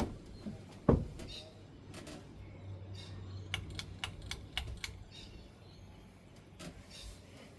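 SMC pull-chain ceiling fan switched off: the pull-chain switch clicks once, sharply, about a second in, then the motor hums low as the fan coasts down, followed by a quick run of light ticking clicks.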